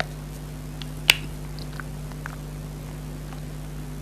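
Wet mouth sounds of eating liquid jelly: a few scattered soft squelchy clicks, with one sharper smack about a second in, over a steady low hum.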